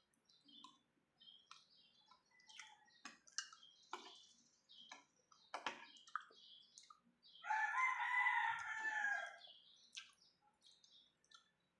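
A rooster crows once for about two seconds, past the middle. Small bird chirps and light clicks are scattered throughout.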